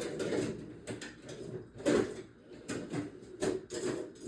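Rummaging through tools: irregular clanks and clatters of metal parts being moved and set down while gear pullers are searched for.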